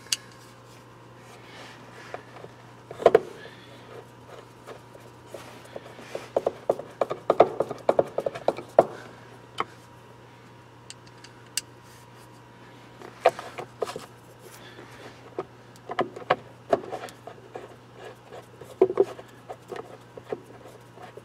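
Scattered clicks, taps and rubbing of screws and plastic center-console trim being handled and fitted in a car, with a screwdriver at work near the end.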